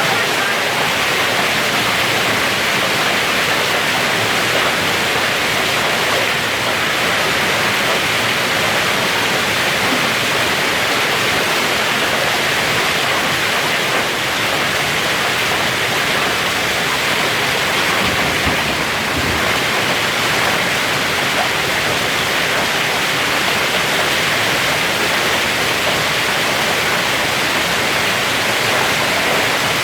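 Hail coming down heavily: a steady, dense hiss of hailstones striking.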